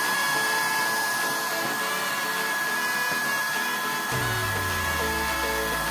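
Small electric blower fan running steadily with a high whine, forcing air into a homemade waste-oil stove's burner; noisy. Background music plays over it, with a bass line coming in about two-thirds of the way through.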